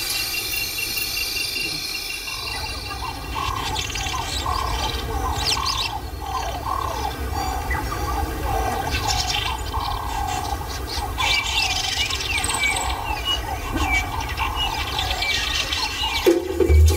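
Bush ambience: insects trilling steadily at the start, then from about two seconds in, birds calling, with a repeated call about twice a second and scattered higher chirps over it.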